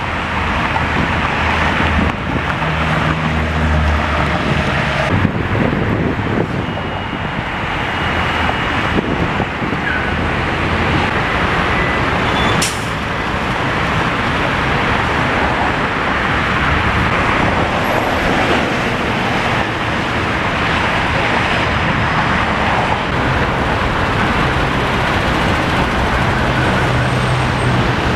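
Steady roar of dense expressway traffic: cars and buses rolling past in several lanes, with the low engine drone of heavy vehicles such as buses swelling a few seconds in and again near the end. A single sharp click comes about halfway through.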